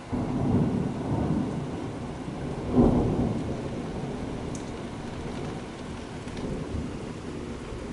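Thunder from a severe thunderstorm. A low rumble sets in at the start, a louder crack comes about three seconds in, and the rumble rolls on and slowly fades, all over the steady hiss of heavy rain.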